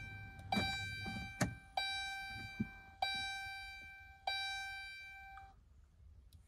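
Vehicle warning chime in a 2012 Dodge Grand Caravan, dinging at a steady pace about once every 1.25 seconds, four times, each ding a bell-like tone that fades away; it stops near the end. A few faint clicks fall between the dings.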